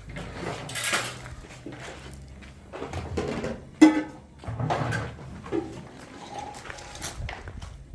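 Irregular knocks and clinks of hard household objects being handled, with one sharp, briefly ringing clink a little under four seconds in.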